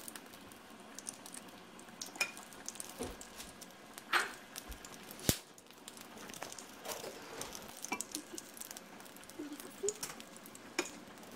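Egg-battered chiles rellenos frying in oil in a pan: a steady sizzle with scattered crackling pops, and a couple of sharper clicks about four and five seconds in.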